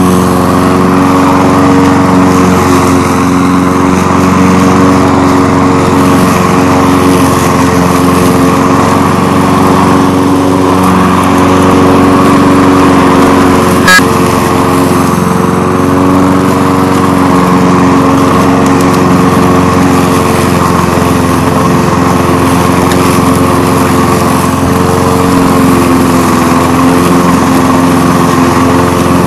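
Walk-behind lawn mower's small engine running steadily at full throttle while cutting grass, close to the microphone. A single sharp click sounds about halfway through.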